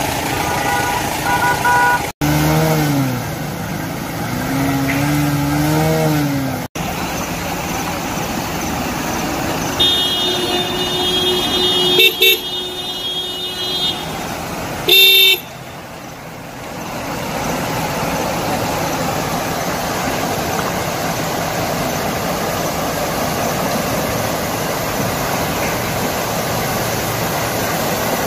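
Road traffic with vehicle horns honking several times; the loudest are two short toots a little past the middle. After that comes a steady rushing noise.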